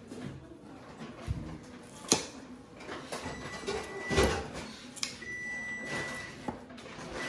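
Kitchen scissors snipping pandan leaves: a few separate sharp snips spread out, the loudest about four seconds in.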